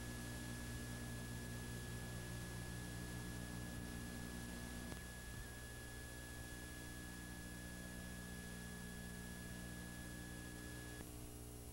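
Steady electrical hum and hiss from a blank stretch of videotape playing back, with a thin high whine over it. Near the end the whine cuts off and the hiss thins.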